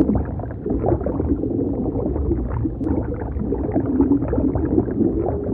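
Air bubbles rising and gurgling underwater: a dense, continuous bubbling with many small irregular pops, muffled, with no high tones.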